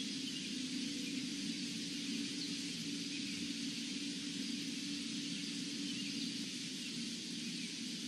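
Steady outdoor background noise by a pond: a low hum under a constant hiss, with a few faint, short high chirps.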